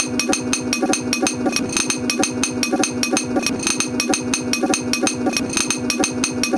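A drum beat: a fast, even run of sharp percussive clicks over a steady held tone.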